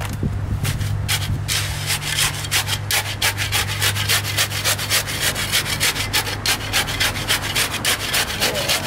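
Steel shovel blade jabbed rapidly up and down into wet concrete in a post hole, a quick even gritty scraping of about five strokes a second, working the concrete down so it settles in the hole.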